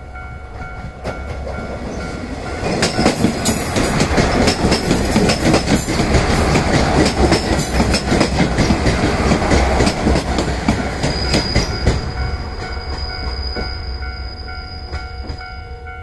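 JR Shikoku diesel railcars passing over a level crossing. The engine and the clacking of wheels over rail joints build up over a few seconds, stay loud for several seconds, then fade, with a thin high whine near the end. The crossing's electronic alarm bell rings steadily throughout.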